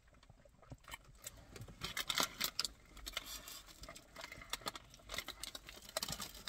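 Paper pie bag rustling and flaky pastry crackling as a bitten pie is handled: a run of small, scattered crackles, busiest about two seconds in.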